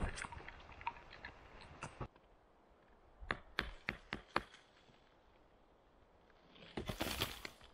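A hatchet knocking against a stack of blocks: a quick run of about six sharp knocks, then a short scraping, crumbling rustle near the end.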